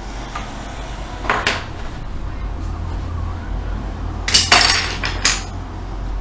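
Plastic Lego pieces clicking and clattering as the model is handled: one clatter about a second in, a louder cluster of clicks about four and a half seconds in, and one more click just after, over a steady low hum.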